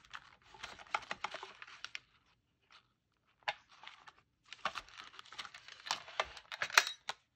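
Sticker sheets and sticker boxes being sorted through by hand: quick clicks, taps and crinkling rustles in two busy stretches, with a quiet gap of about a second and a half in the middle broken by a single click.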